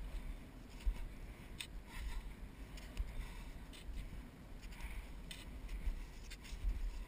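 Skis scraping and sliding over snow in short strokes about once a second through the turns of a descent. A low rumble of wind on the camera microphone runs underneath.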